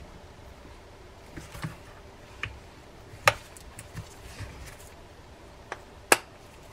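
Metal parts of a Shimano Trinidad 20 fishing reel clicking and tapping as they are handled and fitted together during reassembly: about eight light, separate clicks, with two sharper ones about three and six seconds in.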